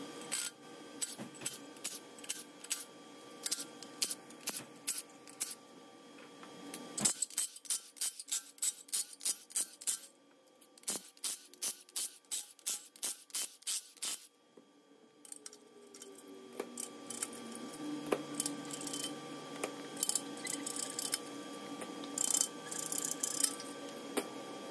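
Ratchet clicking in quick regular runs as the main bearing cap bolts of an LS engine block are backed out, followed by rubbing and light metal clinks as the caps are handled.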